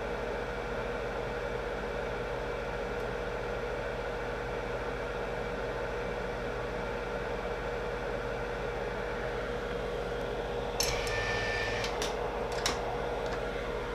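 Small electric fan running steadily with a constant hum. About eleven seconds in there are a few sharp clicks and brief high tones, and just before the end the fan noise cuts off suddenly.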